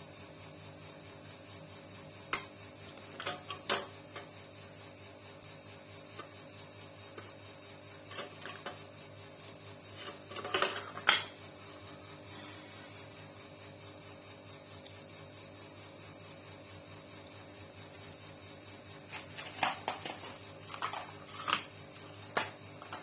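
Riccar sewing machine running on a test after its drive was converted to a timing belt: a faint, steady mechanical hum with an even ripple. A few sharp metal clinks break in, loudest about eleven seconds in, with a cluster near the end.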